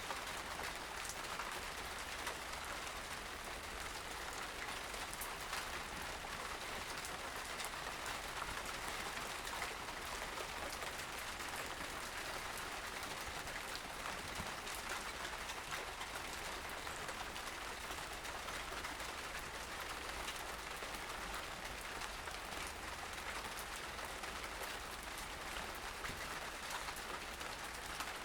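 Steady, even outdoor ambient noise: a constant hiss with faint fine crackles over a low rumble, recorded raw with no processing.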